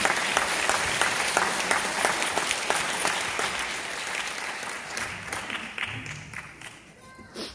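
Audience applauding, dying away gradually toward the end.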